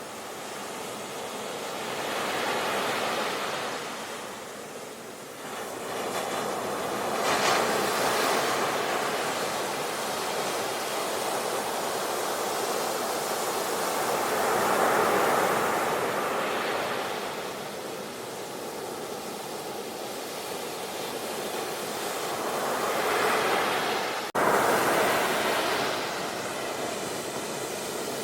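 Ocean waves washing onto a beach, the surf swelling and falling back every few seconds. Near the end it cuts out for an instant and comes straight back loud.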